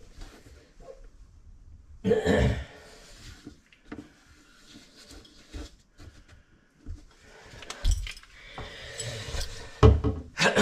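Scattered clicks and handling noises of a garbage disposal's sink flange and mounting parts being fitted into the sink drain, with louder bursts of noise about two seconds in and again near the end.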